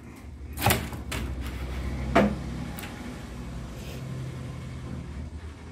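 A baby slapping a computer keyboard, three sharp knocks in the first two seconds or so, the last the loudest. Under them the low steady hum of a motor vehicle's engine runs on until near the end.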